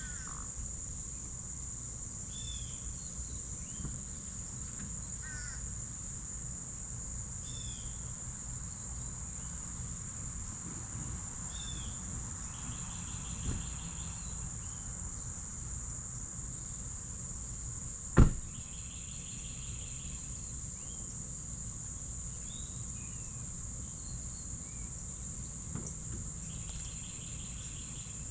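Steady high-pitched drone of crickets, with short falling bird chirps every couple of seconds and a few brief trills. One sharp knock about two-thirds of the way through is the loudest moment.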